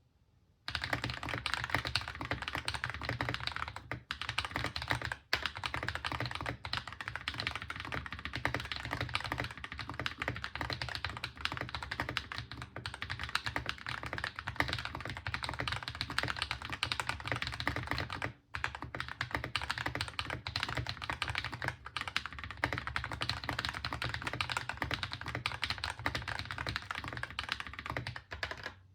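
Fast continuous typing on a Keychron C1 mechanical keyboard with lubed AKKO Ocean Blue switches, a quick stream of keystroke clicks with a few short pauses. The board is modded with case foam, tape mod and tuned stabilizers.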